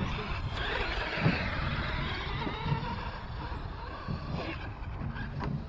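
Electric RC truck's motor whining as the truck drives off across the grass, getting slightly fainter as it pulls away.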